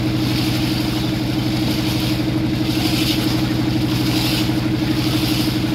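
Motorboat engine running steadily with a fast, even throb.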